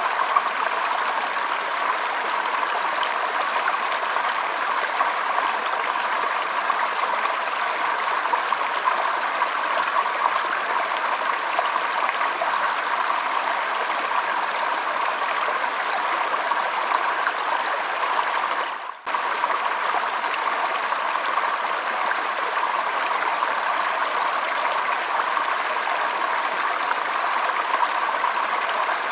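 Shallow stream flowing and trickling, a steady even rush of water. It cuts out for a split second about two-thirds of the way through, then carries on unchanged.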